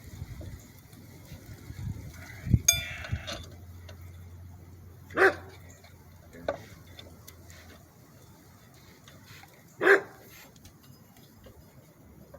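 A dog barks twice, single barks about five and ten seconds in. Near three seconds in there is a short metallic clink with a brief ring, from a tool or part.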